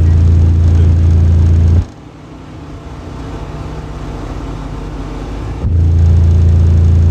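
Car-audio subwoofers in a truck's transmission-line enclosure, playing a loud, steady deep bass tone around 28 Hz as burps for an SPL meter. The tone cuts off suddenly about two seconds in, and after a quieter gap of background noise a second burp starts near the end.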